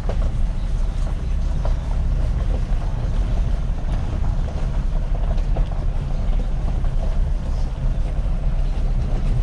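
Vehicle engine running steadily at low speed, a constant low rumble with wind buffeting the microphone and a few faint knocks.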